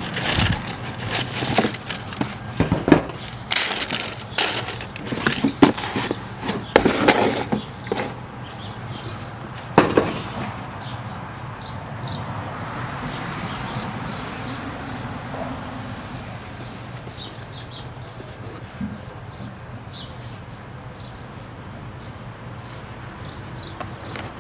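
Tissue paper crinkling and sneakers being handled: a busy run of rustles and knocks for about the first ten seconds, ending in a sharp knock. After that only quieter handling over a steady low background noise.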